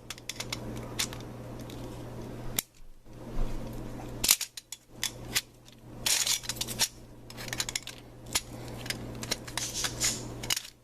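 A flat screwdriver prying at the metal retaining ring of a garbage disposal's sink-mount assembly: repeated scraping and sharp metallic clicks, the loudest about four seconds in, as the ring resists coming out.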